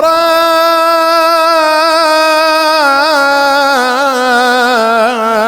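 A male radood chanting one long held note of Arabic mourning poetry. From about three seconds in the note breaks into small wavering turns as the pitch steps down.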